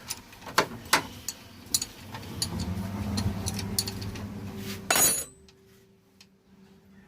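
Hand tools clinking against metal engine parts: a run of sharp metallic clinks, ending in a louder clatter about five seconds in.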